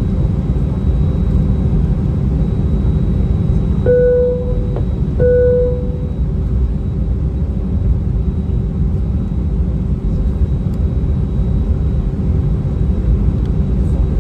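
Steady rumble of engine and air noise inside an Airbus A319 cabin in flight, with a faint steady hum. About four seconds in, a cabin chime sounds twice, about a second apart.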